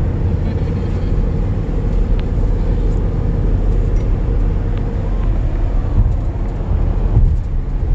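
Steady road noise inside a moving car's cabin: a low, even rumble with a faint steady hum.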